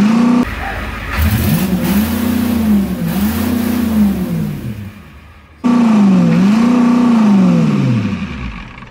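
7.3 IDI V8 diesel engine being revved repeatedly, each rev climbing and falling back, about five in all, with the sound breaking off abruptly twice. The revs die down near the end. The engine has a known exhaust manifold leak still unrepaired.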